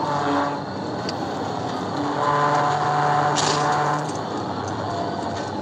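Police pursuit car at about 105–110 mph, heard from inside the cabin: steady road and wind noise with the engine running. A steady pitched hum grows louder from about two to four seconds in.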